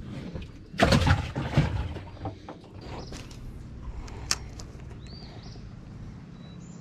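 A short burst of rustling and clatter about a second in as a small caught crappie is handled and unhooked in the boat, then a few light clicks. Near the end a bird gives short whistled chirps, one rising and falling.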